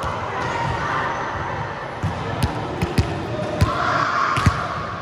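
Volleyball being struck by hands and bouncing on a hard indoor court floor: a run of about six sharp slaps and thuds starting about two seconds in, in a large sports hall.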